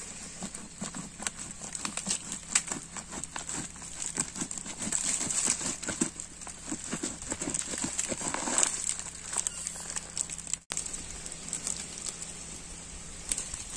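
A whole jackfruit being pried apart by hand along a knife cut: the thick spiky rind cracks and the fibrous flesh tears with a quick run of crackles and snaps, densest in the middle, easing off near the end.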